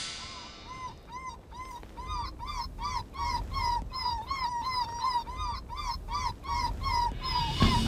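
Electronic game caller playing a recorded baby cottontail rabbit distress call: a string of short high squeals, about three a second, each rising and falling in pitch. It is a predator call meant to draw in animals hunting the rabbit.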